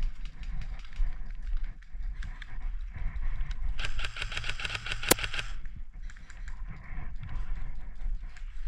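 A burst of rapid, evenly spaced airsoft gunfire about four seconds in, lasting under two seconds, with one sharp crack near its end, over the rustle of footsteps and gear handling and wind rumble on the microphone.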